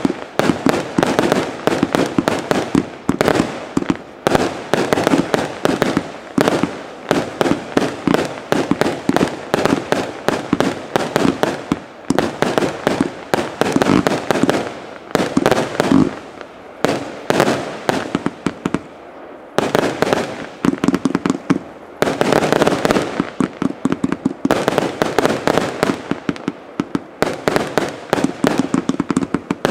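Broekhoff 'F.U. (Fireworks University)' 144-shot firework cake firing: rapid, dense volleys of launch thumps and sharp bangs that run almost without a break, with a short lull about two-thirds in.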